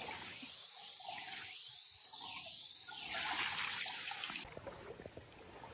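Shallow stream water trickling, with feet splashing as a person wades through it in the second half.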